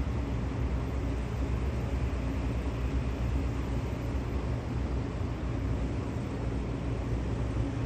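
Floatplane's engine running steadily as it taxis on the water, heard far off under a steady low rumble.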